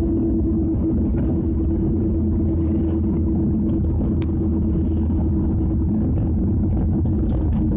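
Nissan Skyline GT-R (BNR32) on the move: a steady low road-and-drivetrain rumble with a constant droning whine over it, unchanging throughout.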